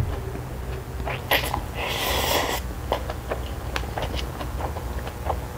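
A person slurping chapaguri noodles off chopsticks: one short airy slurp about two seconds in, with wet chewing and mouth clicks before and after it.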